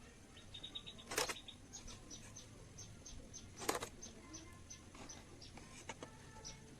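Two sharp knocks about two and a half seconds apart, with runs of faint, short, high ticks between them.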